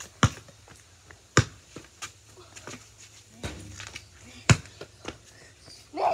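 Basketball bouncing on a paved driveway: a handful of sharp smacks spaced a second or so apart. A child's short shout near the end.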